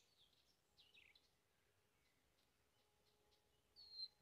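Near silence, with a few faint bird chirps and one slightly clearer chirp near the end.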